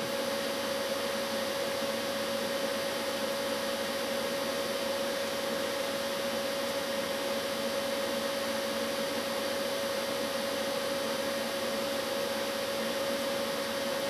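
Steady even hiss with a constant mid-pitched hum, the unchanging background noise of a small workshop room such as a fan or ventilation; no scraping of the sandpaper on the fibre stands out.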